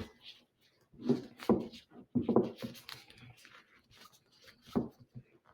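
Handling noises of a rubber tourniquet being re-tied around an arm: several short stretching and rubbing sounds.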